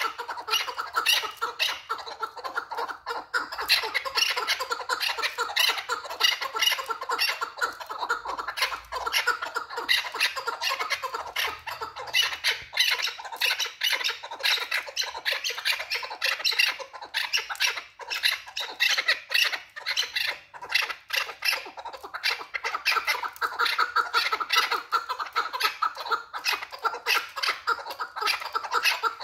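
Chukar partridge calling without a break: rapid runs of short, sharp chuk notes repeated over and over.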